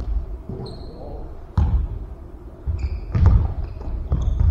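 Basketball bouncing on a hardwood gym floor, a few separate heavy thumps, with sneakers squeaking in short high chirps as players cut and stop.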